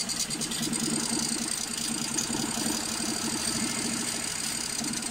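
BMW N43 four-cylinder petrol engine idling roughly and struggling to run, misfiring so that it runs on two cylinders only. The mechanic puts the misfire down to a probably failed injector-driver MOSFET transistor in the MSD80 engine ECU.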